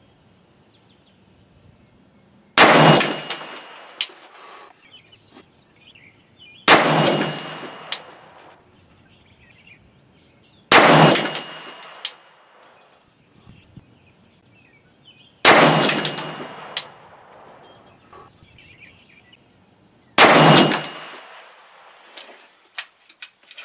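Five single shots from a scoped Rock River Arms AR-15 with a 16-inch 1:9 twist barrel, firing 77-grain match rounds, spaced about four to five seconds apart. Each loud crack dies away over about a second, with a brief ringing tone after it.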